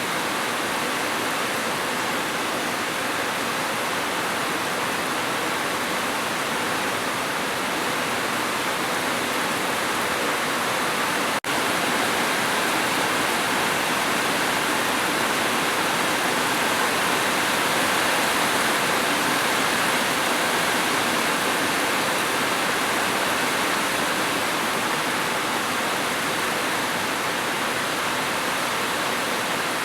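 Steady, dense rain, an even hiss with no let-up, broken by a split-second dropout about eleven seconds in.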